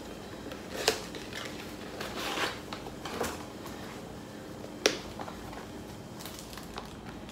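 Hands opening a small cardboard sunglasses box and drawing out a soft pouch: rustling and light scraping, with a sharp click about a second in and another about five seconds in.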